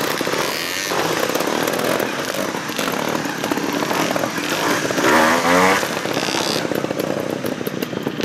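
Two-stroke trials motorcycle engine running on light throttle, with a sharp burst of revs about five seconds in as the bike climbs a rock step.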